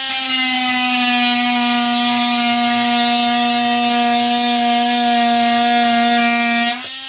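Makita DTM51 18V cordless oscillating multi-tool running free with a blade fitted: a steady, even hum with many overtones. Near the end it is switched off and winds down.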